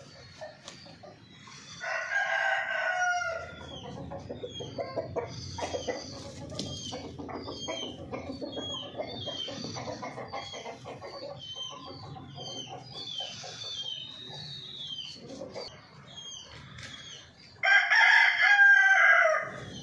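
A rooster crows loudly twice: once about two seconds in and again near the end. Many short, high chirps from small birds carry on throughout.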